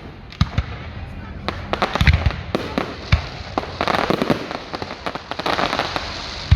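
Fireworks going off: repeated sharp bangs at irregular intervals, with dense crackling bursts between them.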